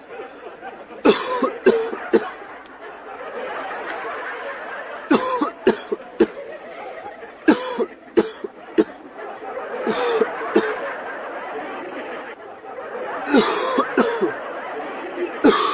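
Coughing in short fits of two or three coughs, repeating every two to four seconds, over a steady background hiss.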